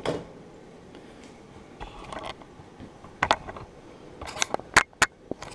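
Kitchen utensils clicking and scraping against a plate as sliced chicken breast is moved onto it: a few separate sharp clicks, then a quick cluster of them near the end.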